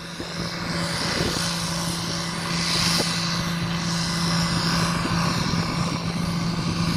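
Fordson Major tractor engine working hard under full load on a tractor-pulling sled, holding one steady note that grows louder over the first second.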